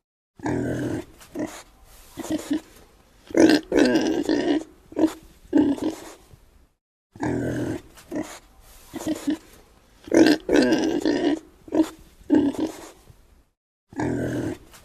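Domestic pig grunting: bouts of short, rough grunts, with a few longer drawn-out ones. The sequence of grunts repeats after about seven seconds, each time after a moment of dead silence.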